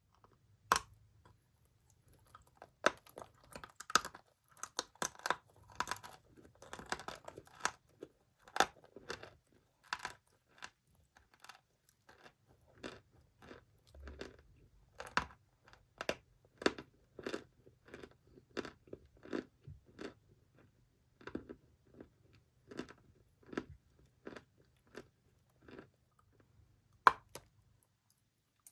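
Dry chalk being bitten and chewed close to the microphone: a run of sharp, irregular crunches, about one or two a second, with one louder bite near the end.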